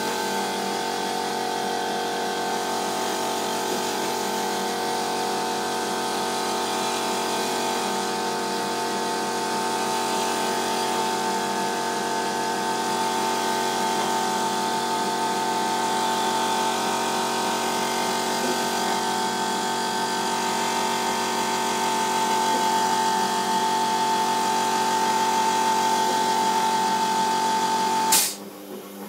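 Electric motor of a stainless-steel machine running steadily with a high whine, then cutting off suddenly near the end.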